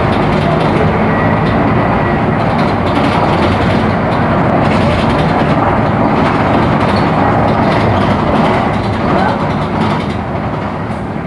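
Mercedes-Benz OF-1418 bus's six-cylinder turbo-diesel engine running steadily under way, with the body rattling loudly.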